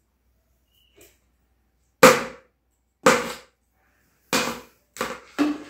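Hollow plastic toy bat knocking hard against the stone floor and balls: five sharp, loud knocks starting about two seconds in, roughly a second apart, the last two close together.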